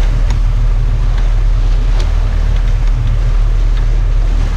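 Fishing boat's engine running steadily, a low hum under wind and water noise, with a couple of short sharp ticks.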